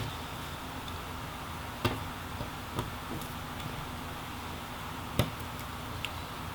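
A few light clicks and taps from hands and tools working the webcam connector and video cable in a laptop's display lid. The clearest come about two seconds in and about five seconds in, over a steady low background hum.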